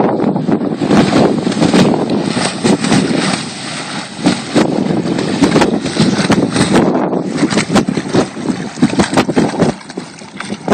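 Outboard motor of a Ranger Banshee Extreme flats boat running at speed, heard through heavy wind buffeting on the microphone.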